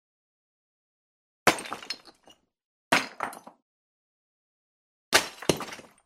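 Title-sequence sound effects: three sharp hits, the last one doubled, each ringing out briefly and dying away, with silence between them.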